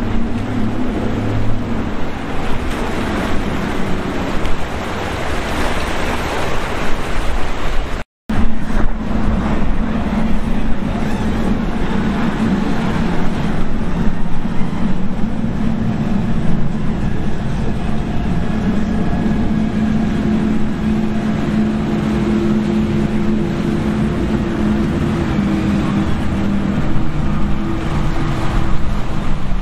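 Motorboat engines running at speed with rushing water and wind noise, a steady engine note under the wash. The sound cuts out completely for an instant about eight seconds in, then the engine note carries on steadily.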